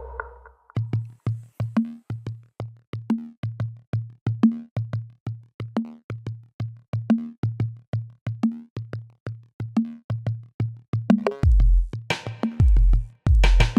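Electronic music with a steady drum-machine beat and synth; a heavy bass line comes in about eleven seconds in.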